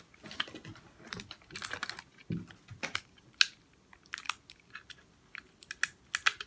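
Clear plastic tape dispenser being handled, fingers picking at the tape roll to find its end: irregular small clicks and scratches, with one sharper click about halfway through.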